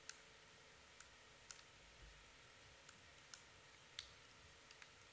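Faint, sharp clicks of a handheld presentation remote's button, pressed about nine times at uneven intervals while the slide fails to advance.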